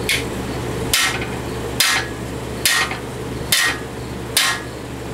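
Hammer blows on a cam bearing driver bar, driving the rear (number 5) cam bearing into the cam bore of an old Chevy engine block: six evenly spaced, ringing metallic strikes, a little faster than one a second.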